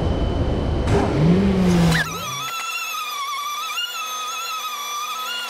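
Random orbital sander with a dust-extraction hose sanding body filler on a car door. The first two seconds are a rough, loud rumble with a brief rise and fall in pitch; then the sound changes abruptly to a steady high whine that wavers slightly in pitch.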